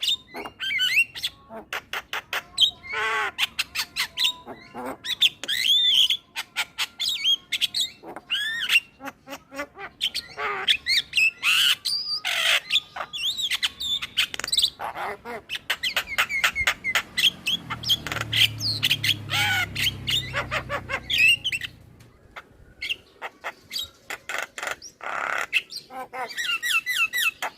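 Male Javan myna (jalak kebo) singing a long, busy chattering song: a rapid, varied run of short whistles, sweeping glides, harsh squawks and clicking notes.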